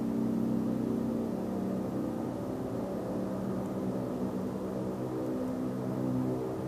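A low, steady droning hum of several layered tones, wavering slightly in pitch. It is the unexplained 'strange hum from the sky', and no planes or helicopters are in sight.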